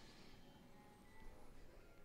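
Near silence: faint room tone with faint background music.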